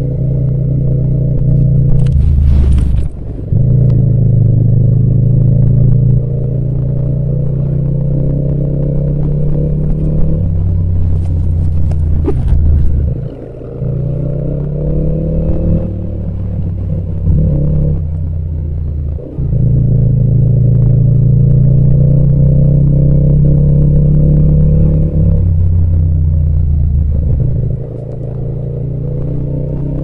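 Yamaha MT-07's parallel-twin engine running under throttle while riding, its note rising as it pulls. The sound breaks off briefly about four times and picks up again.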